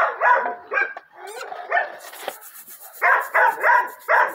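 Dog barking in quick runs of short, sharp barks, with a gap in the middle.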